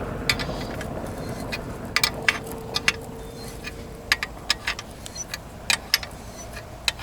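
Coil spring compressors on a rear suspension strut being loosened with a wrench, giving a dozen or so scattered sharp clicks at irregular intervals. A faint steady hum runs through the first few seconds.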